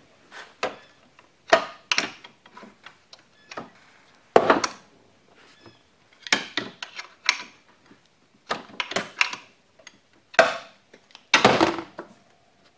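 Hand tools clicking and clinking against the belt tensioner pulley bolt of a 3800 V6 as the reverse-threaded bolt is loosened and the pulley worked off: irregular sharp metal clicks and knocks, some in quick clusters.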